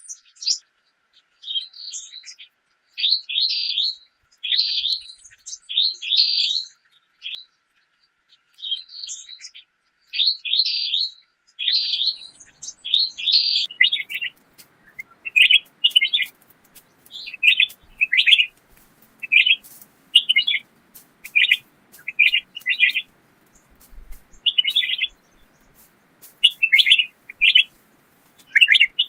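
Small songbirds chirping in short, quick phrases repeated every second or so. About halfway through, a faint low hiss and light ticks join in.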